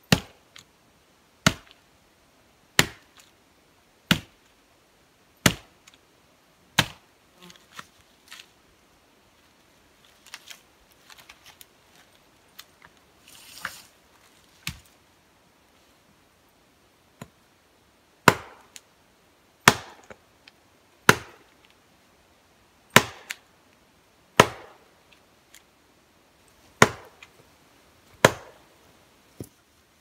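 An axe chopping into a fallen log: sharp, evenly paced strikes about every second and a half, stopping for about ten seconds in the middle, where only light knocks and rustling are heard, then resuming.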